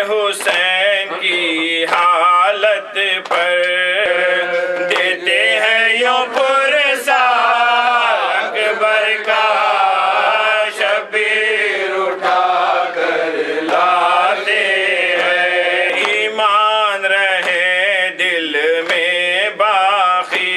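A man chanting an Urdu nauha, a Shia lament for Ali Akbar, in a wavering, drawn-out melody with no instruments, his voice carried through a microphone.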